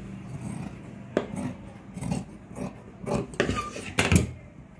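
Scissors cutting a sleeve piece of blouse cloth: a series of uneven snips with the cloth rustling, and a sharper knock about four seconds in.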